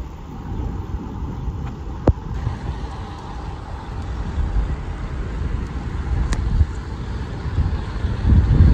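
Wind rumbling over the microphone of a camera riding on a moving road bicycle, with road noise underneath; a single sharp click about two seconds in, and the wind grows louder near the end.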